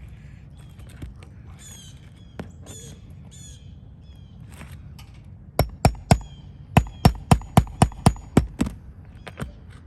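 Hammer striking, likely driving or working a nail: three sharp blows, a brief pause, then eight more at about four a second, with a faint metallic ring. Birds call in the background before the hammering starts.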